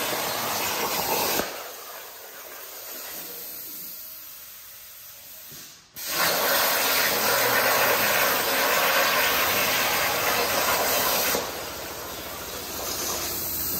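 CNC plasma table's torch cutting quarter-inch steel plate: a steady hiss from the arc and air jet. It goes softer about a second and a half in, drops out for an instant about six seconds in, comes back loud, and eases again near the end.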